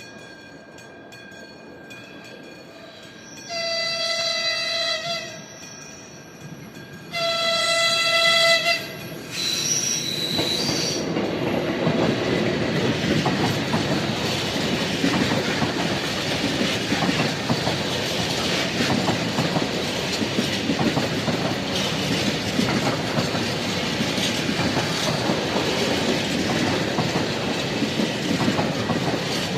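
Train horn sounded in two long blasts, followed by a short higher tone, then the train passing close by with a steady rumble and wheels clicking over the rail joints.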